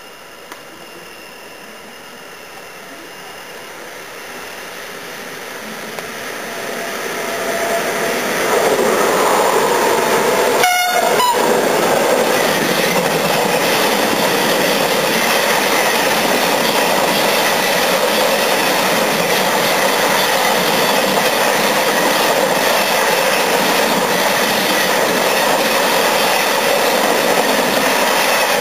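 Freight train passing through a station at speed. Its sound grows over the first eight seconds as it approaches, then holds as a steady, loud rumble and clatter of wagon wheels on the rails as the covered wagons go by close.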